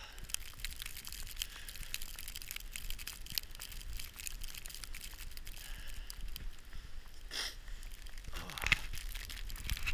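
Footsteps crunching through deep snow, an irregular crackling, with a low wind rumble on the microphone; the loudest crunch comes near the end.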